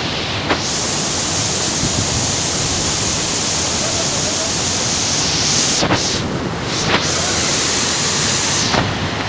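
Waterfall rushing: a loud, steady noise of falling water, with the highest part of the sound briefly dipping twice about six and seven seconds in.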